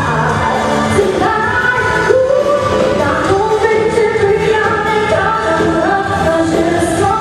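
Live band playing a pop song with vocals sung over the music.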